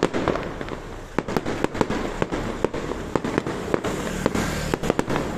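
Fireworks going off: a continuous run of sharp bangs at irregular intervals, about three a second, over a steady background rumble of further explosions.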